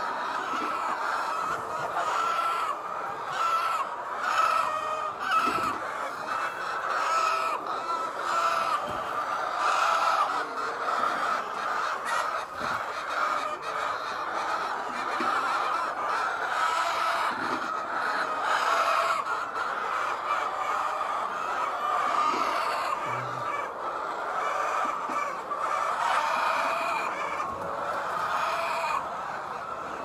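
A flock of white layer hens clucking, many calls overlapping without a break.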